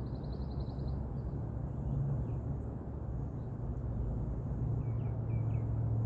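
Outdoor ambience: a steady high insect buzz that swells and fades, a short trill near the start and a few short bird chirps about five seconds in, over a steady low hum.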